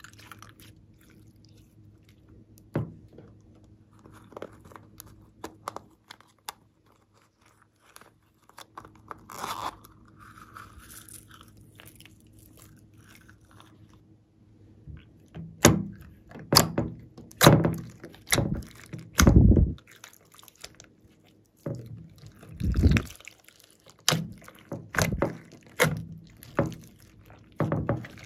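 Slime mixed with foam beads being pressed and folded by hand: sticky squelches and sharp crackling pops of trapped air. The pops are sparse and soft at first, then come loud and quick in the second half.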